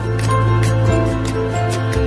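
Background music: a calm melody of held notes over a steady bass, with light ticks at an even pace.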